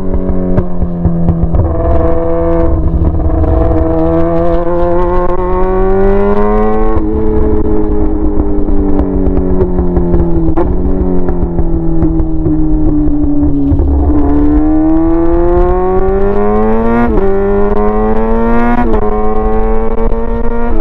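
Yamaha R6's inline-four engine running straight-piped with no muffler, loud. Its pitch climbs, sinks slowly, then climbs again with the throttle, with two sharp breaks in pitch in the last few seconds.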